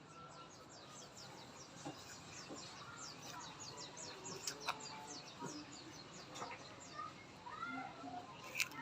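A bird singing a rapid trill of short, high, falling notes, about five a second, that stops about two-thirds of the way through. Scattered sharp clicks sound throughout, the loudest near the end.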